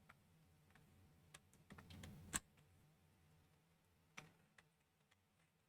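Lego Technic plastic pieces being handled and fitted together: a few sparse, sharp clicks, the loudest about two and a half seconds in, over near silence.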